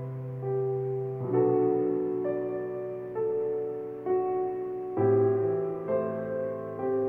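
Slow, gentle piano accompaniment: a note or chord struck about once a second, each ringing on and fading.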